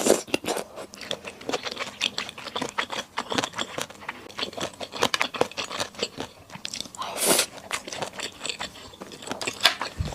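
Close-miked chewing and crunching of food, a dense run of quick, irregular crackly clicks, with one longer rushing sound about seven seconds in.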